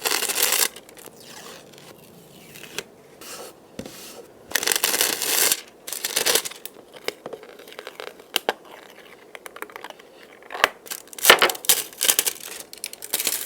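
Crinkly thin film being crumpled and handled in short bursts of crackling, with quieter pauses and small clicks between them.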